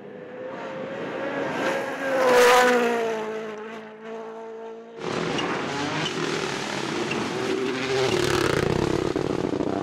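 A rally car approaches and passes at speed, its engine dropping in pitch as it goes away. About five seconds in, this gives way abruptly to another rally car engine held at high revs under hard driving, with heavy tyre and road noise.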